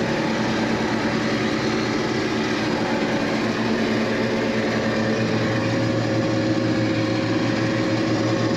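Farm machinery engine running steadily under load, with a constant hum and machine noise during soybean harvesting.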